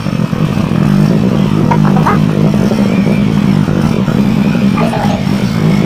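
Small motorcycle engine running with a steady, even drone as the bike rides slowly along.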